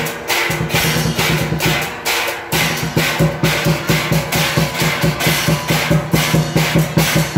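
Drum and percussion music beaten in a quick, steady rhythm of about four strokes a second, with a low drum tone sounding under it for most of the stretch.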